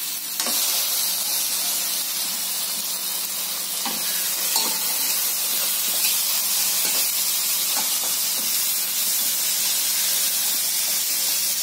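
Freshly washed pieces of goat lung dropped into a hot pan of fried onion-tomato masala, setting off a steady sizzle about half a second in. A wooden spatula stirs them, with a few short scrapes and knocks against the nonstick pan.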